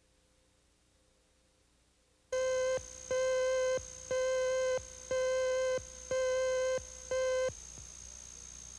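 Videotape slate tone: six steady beeps at about one a second, starting about two seconds in, the first one shorter, with a faint high whine continuing after the last beep.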